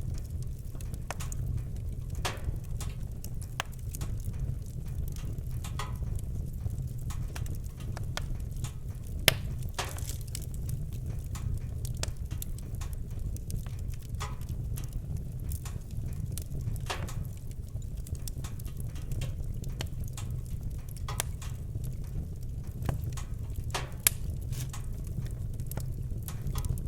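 Wood fire in a fireplace crackling, with irregular sharp pops over a steady low rumble of the flames; two louder pops stand out, about nine seconds in and near the end.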